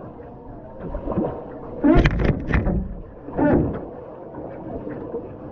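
Kayak paddle strokes splashing water beside the hull close to the microphone, with two loud splashes about two and three and a half seconds in.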